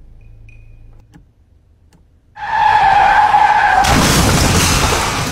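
Car tyres screeching in a skid: a loud squeal starts suddenly about two and a half seconds in and turns into a harsher skidding noise for the last second and a half.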